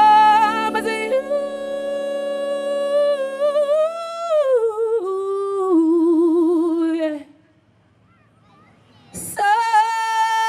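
A female singer sings alone with no band behind her: long held notes with vibrato that slide down in pitch, then break off into near silence. A click follows, then another long held note.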